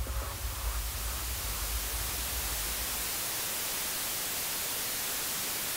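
Steady static hiss, like a detuned television's white noise, with a low bass rumble fading out about three seconds in.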